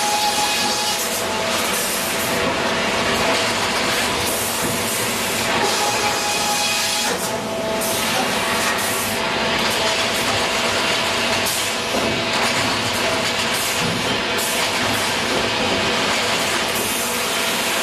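Grey Series 2000 reversing belt sawbench running and sawing a log: a loud, steady, dense machine noise of the saw cutting, with a faint steady whine through it.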